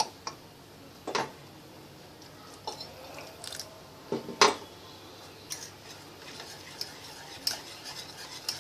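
Wire whisk mixing thick flour-and-egg batter in a stainless steel bowl, the metal whisk clinking against the bowl in scattered, irregular taps. The loudest clink comes about halfway through.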